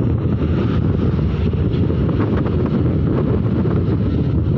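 Steady, loud wind rumble buffeting the microphone of a moving motorbike, with the ride's vehicle noise underneath.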